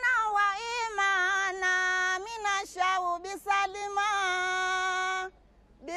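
Women singing a deba, the Mahoran devotional chant, in long held, wavering melodic phrases, with a short break near the end before the singing picks up again.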